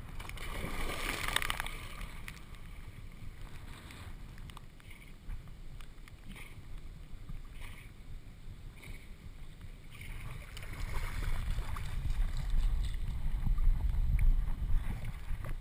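A dog wading and then swimming, heard from a camera strapped to its back: water sloshing and splashing around it, with a low rumble of water against the camera that grows louder in the last few seconds as it swims.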